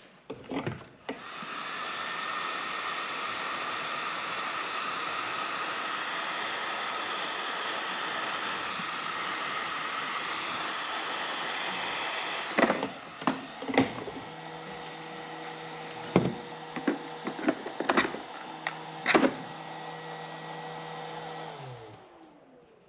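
Electric heat gun blowing steadily, shrinking heat-shrink tubing over a wiring harness. About halfway it drops to a quieter hum, with several sharp clicks of handling, and near the end its pitch falls as it winds down and stops.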